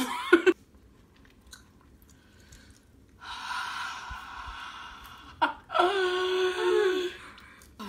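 A woman's long breathy exhale through a wide-open mouth, then a short voiced whimper, the reaction of someone burning from hot-wing sauce.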